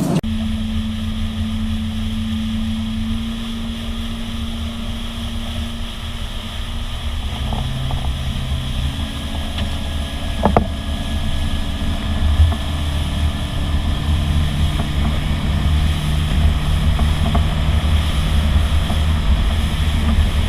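Motorboat engine running steadily under way, with wind buffeting the microphone and water rushing past the hull. A single sharp knock about halfway through.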